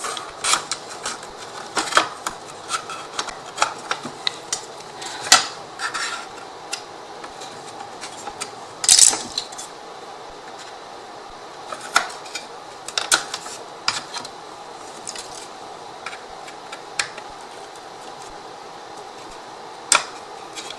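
Light, irregular clicks and taps of small laser-cut MDF wood pieces being handled and pressed into their slots, with a louder brief scrape or clatter about nine seconds in.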